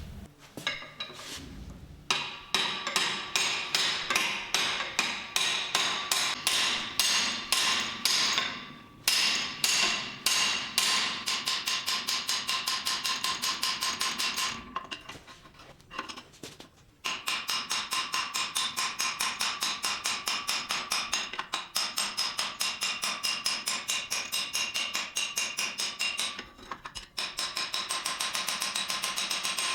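Hammer blows on a small vise's metal, struck in quick steady succession at about three to four blows a second, each one ringing. There are short breaks about nine seconds in, for a couple of seconds around the middle, and near the end.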